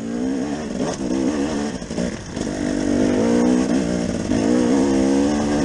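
2017 KTM 250 EXC two-stroke enduro motorcycle engine revving under way on a rocky trail, pitch rising and falling with the throttle; it eases off briefly about two seconds in, then pulls hard again.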